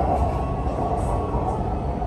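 Steady running noise inside a moving BTS Skytrain car: an even rumble with a hiss of wheels on rail.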